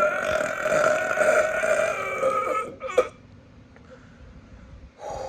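A long, loud burp at a steady pitch that stops about two and a half seconds in, brought up by the carbonation of a gulped can of Sprite. A sharp click comes right after it, and a short breathy exhale near the end.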